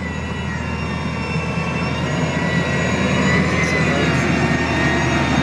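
Motor grader's diesel engine running steadily, slowly growing louder, with a high whine over the low drone.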